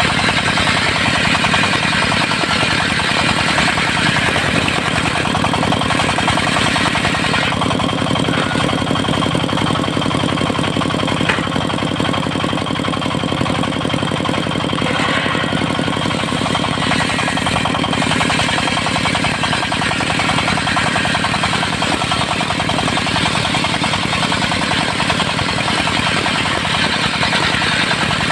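Diesel engine of a mobile circular sawmill running steadily with rapid, even firing. Its higher-pitched part drops back for about ten seconds in the middle, then returns.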